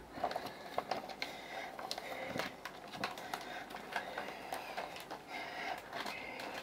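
Faint rustling and crinkling of a clear plastic bag being handled, with scattered light ticks and taps.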